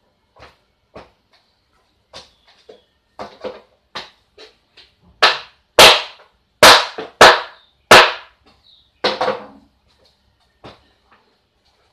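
Sharp knocks on the wooden frame of a miniature house model as it is worked by hand: scattered light taps, then a run of five loud knocks in under three seconds about halfway through, then a few softer ones.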